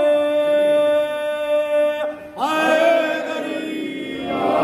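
A man's voice chanting in melodic recitation, holding one long steady note, then breaking with a swoop in pitch about two seconds in and holding a second long note.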